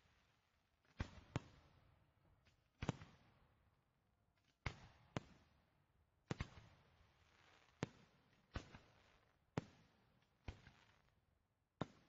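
Fireworks shells bursting one after another, a sharp bang about every second, sometimes two close together, each followed by a short fading tail.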